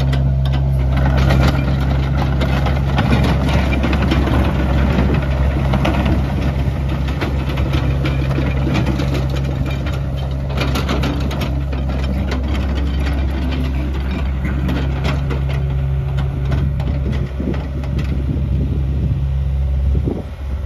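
Hitachi Zaxis mini excavator's diesel engine running steadily, with rattling and clatter that rises and falls as the boom and bucket are worked. The engine note drops just before the end.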